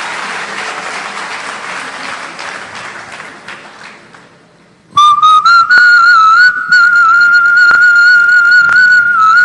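Applause dies away over the first four seconds or so. About five seconds in, a loud human whistle into a microphone starts: one long note that rises a little at first, then holds with slight wavers and a few brief breaks.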